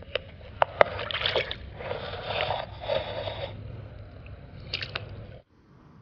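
Water splashing and sloshing around a northern pike held by hand at the surface as it is released, in three bursts, with a few sharp clicks in the first second. The sound cuts off suddenly near the end.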